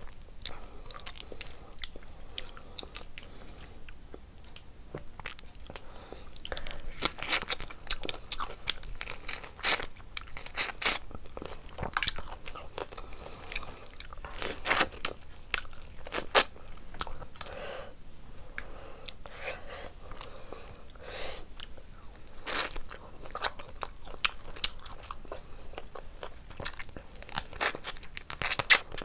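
Close-up eating sounds of a person chewing and biting into prawn and curried rice eaten by hand: wet chewing with irregular crunches and smacks, the loudest about ten seconds in and near the end.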